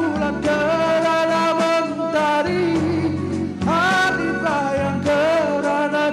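A man singing into a microphone over an instrumental backing track, holding long notes with a wavering vibrato and breaking between phrases twice.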